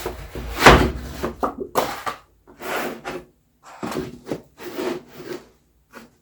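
A wooden toolbox kit being unpacked from its box: a run of irregular scraping, rubbing and knocking as the thin wooden parts sheets are slid out and handled, the loudest knock under a second in.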